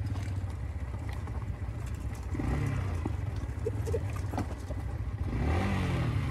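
Yamaha motorcycle engine running at low speed over a stony dirt trail, the throttle opened twice, its pitch rising and falling, about two seconds in and again near the end.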